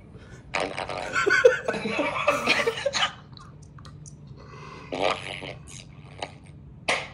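A girl's voice coming through a broken microphone on a video call, garbled and distorted into robot-like noise for about two and a half seconds. Short bursts of laughter follow in the second half.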